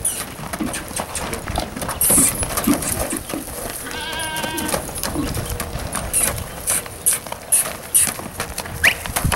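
Hooves of an American Quarter Horse stallion thudding on dirt as it trots and canters around its handler. About four seconds in comes a short quavering animal call.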